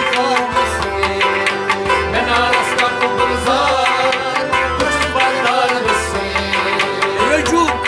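Kashmiri Sufi music: a harmonium holds chords under a plucked rabab, with a drum keeping a steady beat and men singing the melody.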